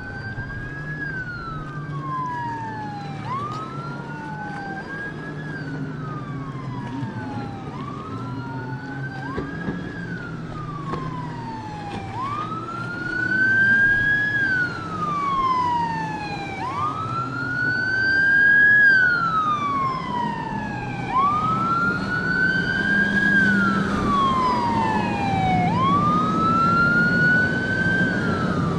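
Emergency vehicle siren wailing, each cycle rising quickly and falling slowly, about every three seconds, growing louder about halfway through as it draws closer. A low engine rumble runs beneath it.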